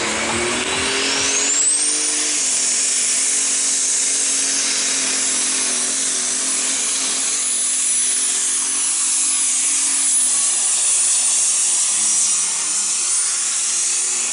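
Modified pulling tractor's engine launching at full throttle and running flat out as it drags a weight-transfer sled down the track. A high whine climbs steeply over the first two seconds and then holds steady.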